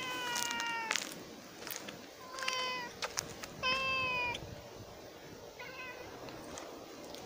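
Black cat meowing four times: a long level meow at the start, two shorter ones around the middle, and a faint short one about six seconds in.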